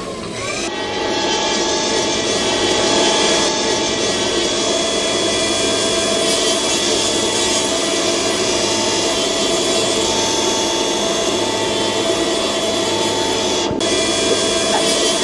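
Podiatry rotary nail drill running with a steady high whine, its burr grinding down thickened toenails with a rough hiss. It comes up to speed about half a second in.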